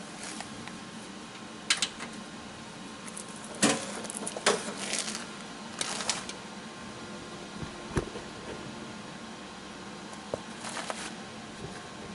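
Scattered short clicks and knocks from handling welding cables and gear, over a steady low hum.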